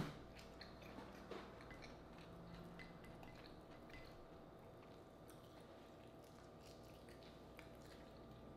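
Faint close-up eating sounds: quiet chewing and small wet mouth clicks while eating frog legs, over a low steady room hum. One sharp click right at the start.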